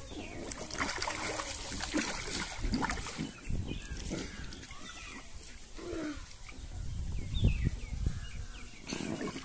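Water splashing and sloshing in an Intex inflatable paddling pool as small children move about in it, in irregular splashes through the whole stretch.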